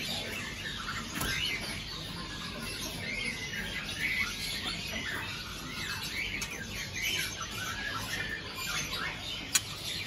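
Many caged songbirds chirping and warbling at once, a dense overlapping chorus of short calls. A single sharp click comes near the end.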